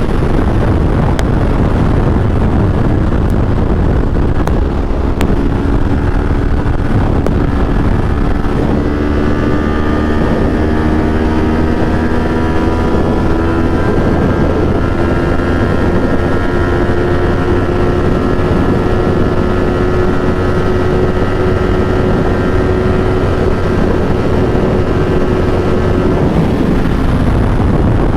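Kawasaki Ninja 400 parallel-twin on its stock exhaust, cruising at a steady speed under heavy wind rush on the microphone. The engine note drifts slowly up and down in pitch as the throttle holds.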